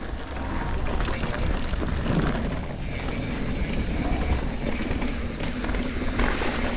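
Mountain bike riding fast down a dirt trail: wind rushing over the microphone, with tyres on dirt and the bike rattling over bumps.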